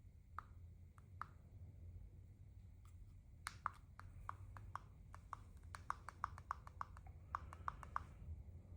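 Small plastic alarm clock being handled, a few sharp clicks at first and then a quick, irregular run of about fifteen clicks, each with a short ring, over a steady low hum.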